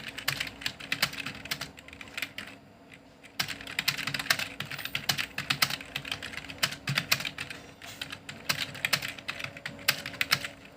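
Computer keyboard being typed on at a medium pace: a steady run of key clicks, with a short pause about two seconds in before the typing resumes.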